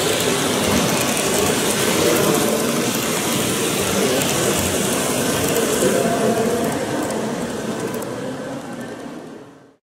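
HO-scale model freight cars (autoracks) rolling along the layout's track, over the steady noise of a busy hall; the sound fades out near the end.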